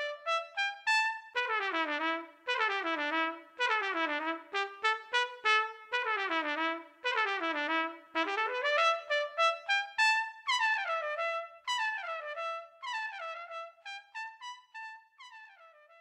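Trumpet playing a melody of short, quick notes, which grow sparser and fainter over the last few seconds.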